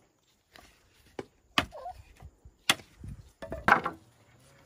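Chopping blows, four or five sharp separate strikes spaced irregularly about a second apart.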